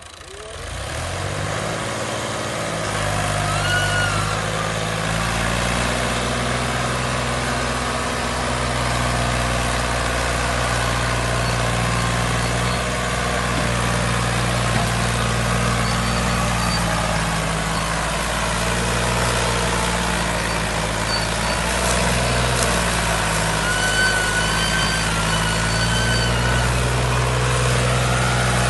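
A heavy farm-vehicle engine comes up in level over the first couple of seconds and then runs steadily. Brief high whistling tones sound about four seconds in and again near the end.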